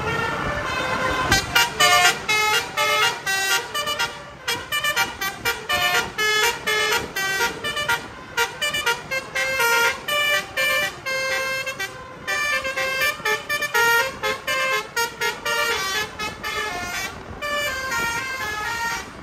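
A bus's basuri musical horn playing a fast melody of short tooting notes that change pitch several times a second, with brief breaks between phrases.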